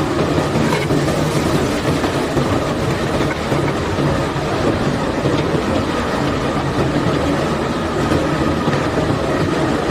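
Steady running of unloading machinery with a low engine hum and a continuous rattle of limestone rock moving off the barge.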